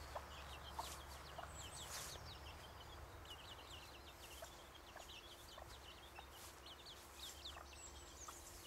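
Faint chicken calls from German Buschhuhn bantams: many quick, high, falling peeps and chirps, with a few soft lower clucks.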